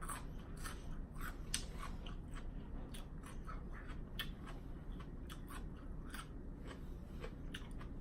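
Close-up chewing of raw cucumber: a steady run of crisp, wet crunches, a few a second.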